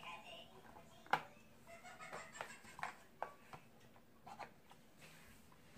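Cardboard phone retail box being handled: scattered light taps, clicks and scrapes as the sleeve and lid are worked off, the sharpest tap about a second in.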